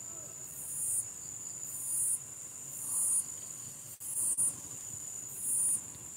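Crickets calling: a steady high-pitched trill with a louder chirp about once a second, and two small clicks about four seconds in.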